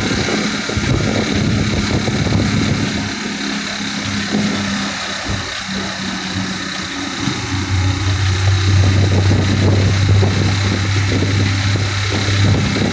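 A vehicle engine runs with road noise while driving. About halfway through, a deeper, steady engine hum comes in and grows louder.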